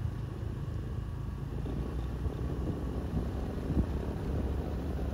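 Steady low rumble, with a brief knock nearly four seconds in.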